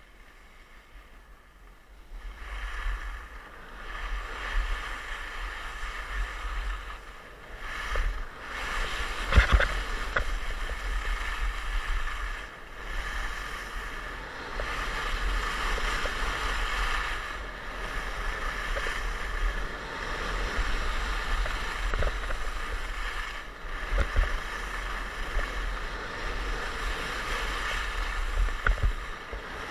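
Skis running and carving on groomed snow, with wind buffeting the camera's microphone: a rushing hiss with a low rumble that starts about two seconds in and swells and fades with the turns, broken by a few short knocks.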